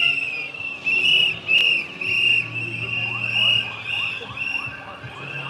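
Several hand whistles blown in repeated short, warbling blasts from a marching crowd, overlapping one another.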